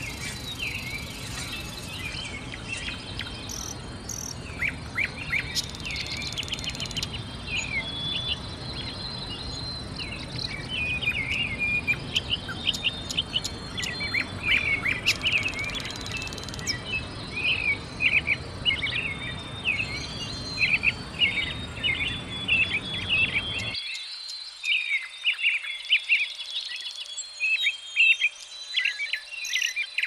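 A busy chorus of small songbirds chirping and trilling over a steady high-pitched insect buzz. A low background rumble underneath cuts off suddenly about three-quarters of the way through.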